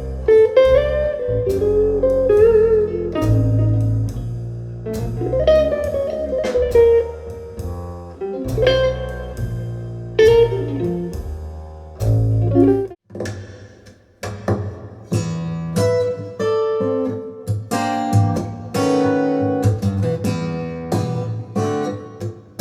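Guitar-led recorded music played through Audio Note AN-J/LX loudspeakers driven by a push-pull tube amplifier. One piece fades out about 13 seconds in, and after a short pause another track starts with guitar.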